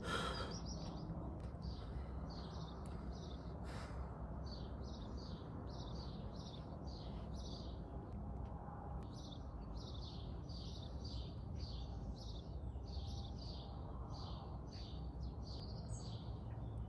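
A bird chirping over and over, short high notes about two a second in short runs, over a steady low background noise.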